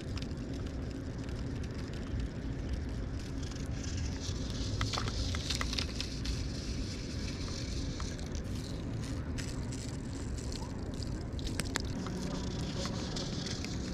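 Wind rumbling on the microphone over lakeside outdoor ambience, with scattered faint clicks and rustles.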